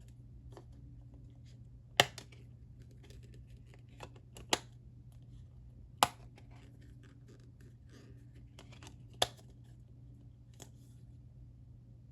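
A plastic Blu-ray case being handled: four sharp clicks and snaps spread a few seconds apart, with light rustling between, over a steady low hum.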